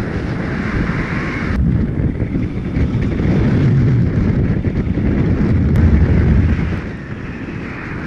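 Strong wind and airflow buffeting the microphone of a paraglider in flight: a loud, steady low rush without tones. The upper hiss eases about a second and a half in.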